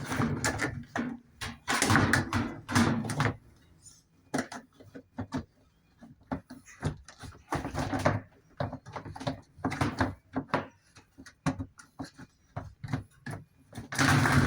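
Irregular clicks and knocks of washing machine parts being handled and fitted during reassembly, busiest in the first three seconds.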